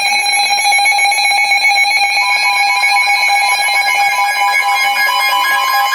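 Emergency Alert System attention signal: a loud, steady electronic alarm tone, with a second, higher tone joining about two seconds in to make a two-tone sound.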